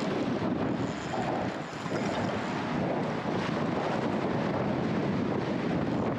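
Wind buffeting the microphone, a steady rush heaviest in the low end.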